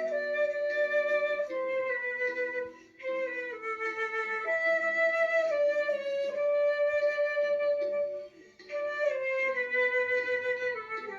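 Flute playing a slow melody in long held notes, breaking off briefly twice between phrases.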